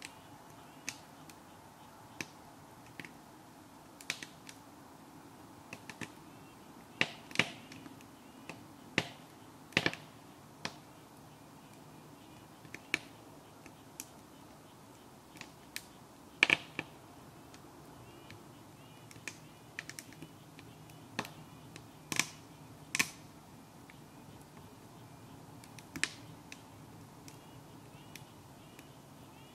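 Wood fire in a sap-boiling stove crackling: irregular sharp pops about once a second, a few much louder than the rest, over a faint steady background rush.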